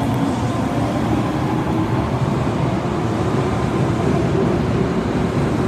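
Osaka Metro Tanimachi Line 22 series subway car running, a steady rumble of wheels and motors with a faint hum.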